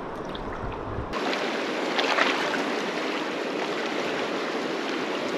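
Fast-flowing river water rushing steadily. About a second in, the sound jumps to a brighter, fuller rush, with a brief louder splash about two seconds in.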